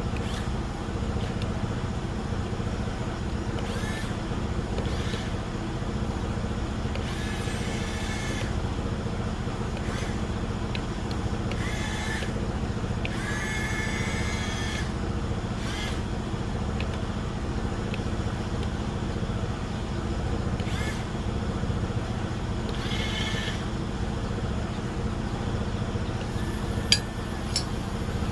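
Steady low rumble of a running motor vehicle, with several brief higher-pitched sounds at intervals and a sharp click near the end.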